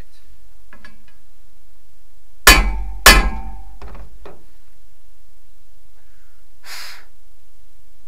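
Two hard hammer blows on the steel of a driveshaft U-joint, about half a second apart, each ringing briefly. A few lighter knocks follow, then a short rustle near the end.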